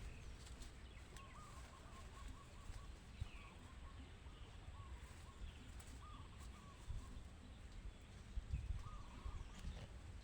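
Faint bird calls: short wavering notes repeated every second or so, with a few higher chirps, over a low rumble of wind or handling noise.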